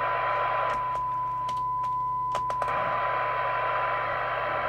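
Midland 77-095 CB radio's loudspeaker with the squelch open on a very weak signal-generator test signal at its threshold, about 0.25 microvolt: a steady test tone over a hiss of receiver noise that starts suddenly. A few faint clicks sound over it.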